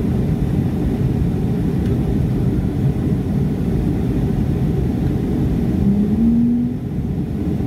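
Steady low rumble of a Boeing 757-200's engines and rushing air, heard inside the passenger cabin during the climb after takeoff. A brief hum that steps up in pitch sounds about six seconds in.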